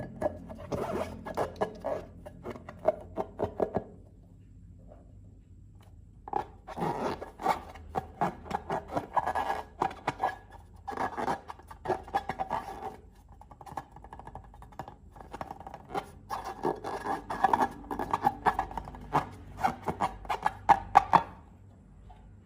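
Slime being worked by hand: spells of dense sticky crackling and clicking, stopping for a few seconds twice.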